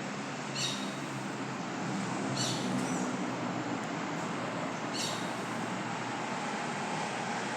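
Birds calling at daybreak over a steady roar of city traffic: three short high calls, about two seconds apart. A steady hum joins the traffic noise near the end.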